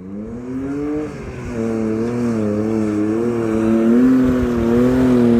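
Off-road 4x4 engine revving hard under load as it drives up a soft sand dune. The pitch climbs over the first second, then holds high and wavers slightly, growing louder as the vehicle approaches.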